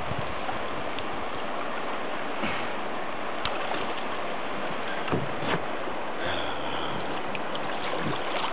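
Steady rushing of the fast river current, with a few faint clicks and a brief low hum about six seconds in.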